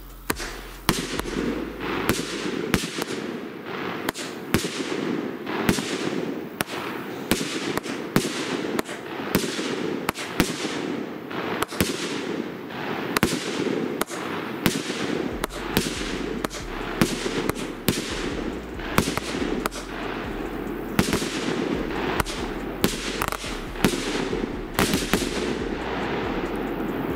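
Pyromax Titanium Salute firework battery firing a long run of sharp salute bangs, one to two a second, each with a short echoing tail, over a steady noise underneath.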